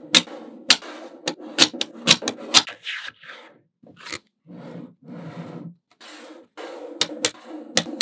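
Small magnetic balls snapping together with a dozen or so sharp, irregular clicks, between stretches of the balls rolling and rubbing against one another.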